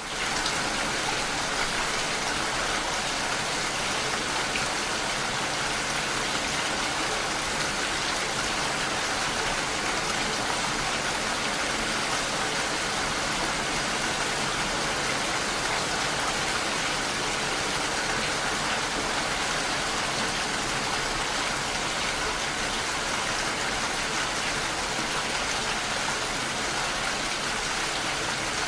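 Steady, heavy rain falling: an even, continuous hiss of drops with no separate impacts standing out.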